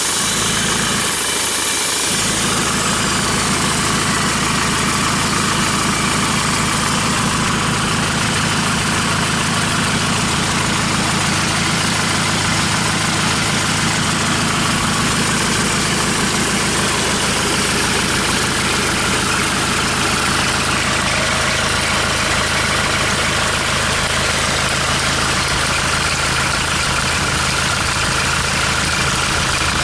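Hyundai D4CB 2.5-litre four-cylinder common-rail turbodiesel running steadily at idle on a test stand, out of the vehicle, during an oil-pressure check.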